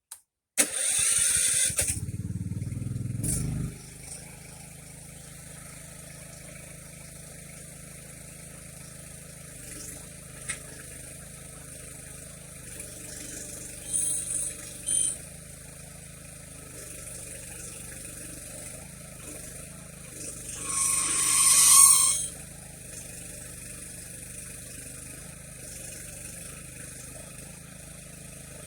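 Small engine running steadily, powering the mini backhoe's hydraulics, after a loud rush of noise in the first few seconds. Short louder bursts come through it, the loudest about 21 seconds in.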